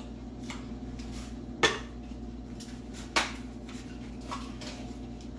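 Ice cubes dropped into a blender jar of juice, clinking against the jar: two sharp knocks about a second and a half apart, with several lighter clicks around them.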